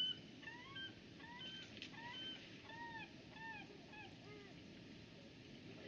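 A gull calling a rapid series of arching cries, about two to three a second, that fade and stop about four and a half seconds in, over the steady rush of the river.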